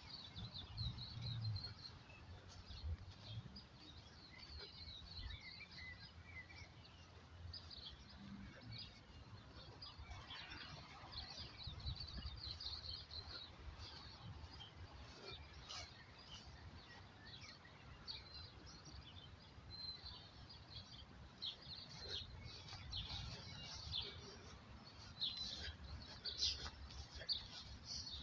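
Birds chirping and singing: many short, high calls, busier near the end, over a faint low rumble.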